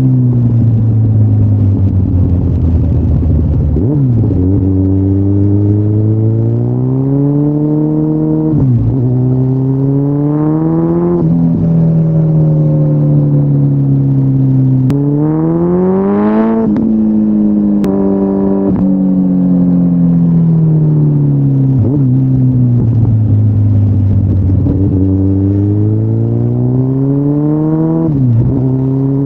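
2013 Kawasaki Ninja ZX-14R's inline-four engine through Yoshimura aftermarket mufflers while riding: revs rise steadily again and again, each pull ending in a sudden drop in pitch, with slower falls in pitch as it slows between curves.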